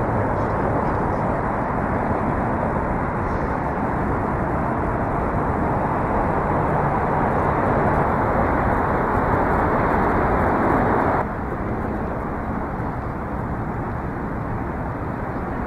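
Steady, loud rushing outdoor background noise from a moving camera. It drops suddenly in level about eleven seconds in and stays steady after that.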